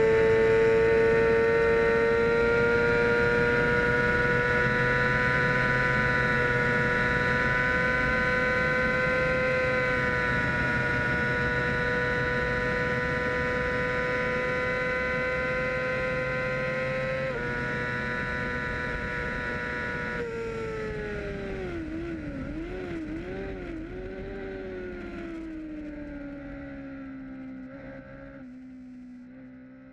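Race motorcycle engine held at high revs in a steady, high-pitched note, with a gear change about 17 seconds in. From about 20 seconds the revs fall and waver as the bike slows, and the sound fades gradually away.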